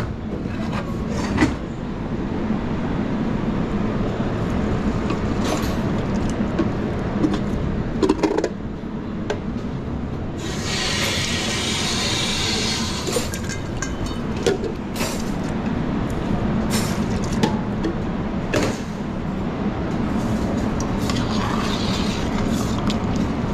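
Busy kitchen noise: a steady low drone with scattered clatter and knocks, and a few seconds of loud hiss about ten seconds in.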